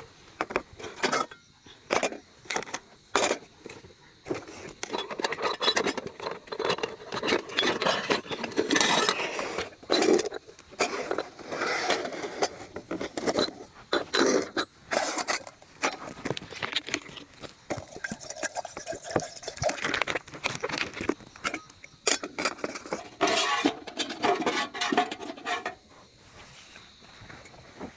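Close handling noise: a busy run of short clicks and knocks that dies down about two seconds before the end.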